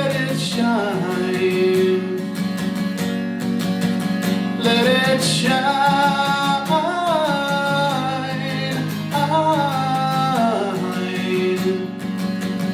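Guitar strummed in a steady rhythm while a man sings a country-rock song over it, holding and bending long notes in three phrases.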